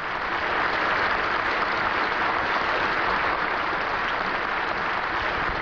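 Audience applauding, swelling in at the start and then holding steady.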